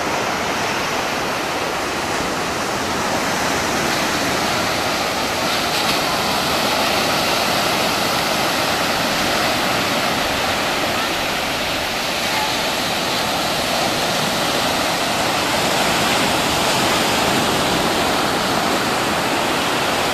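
Ocean surf: a steady, even rushing roar of breaking waves.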